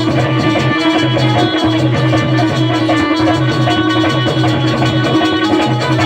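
Instrumental music with a steady percussion rhythm and sustained instrument tones, the accompaniment of a Bundeli rai folk song.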